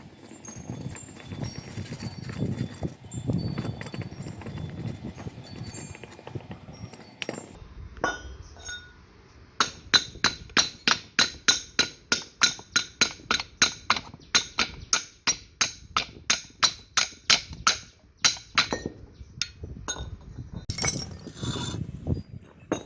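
Metal vise parts clinking as they are handled, then a steady run of hammer blows on metal, about three a second, each blow ringing.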